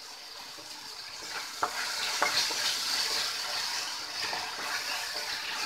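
Capsicum, carrot and onion stir-frying in tomato sauce in a hot pan: a steady sizzle as a spatula stirs, growing louder about a second and a half in, with a couple of sharp clicks of the spatula against the pan.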